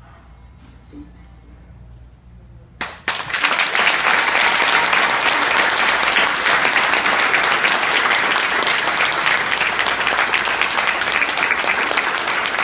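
Quiet for about three seconds, then a single sharp knock, and an audience starts applauding, clapping densely and steadily to the end.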